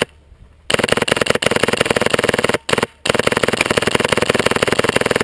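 Airsoft rifle firing on full auto: two long, rapid bursts of shots, the first starting about a second in and lasting nearly two seconds, the second starting around three seconds in.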